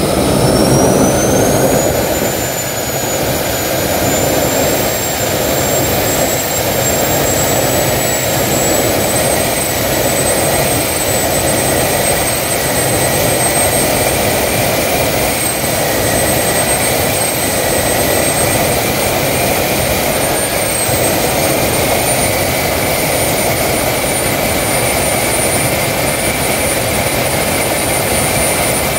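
Homemade turbojet engine running: a high turbine whine that climbs over the first two seconds and then holds steady, rising a little again about two-thirds of the way through, over a steady rushing combustion noise.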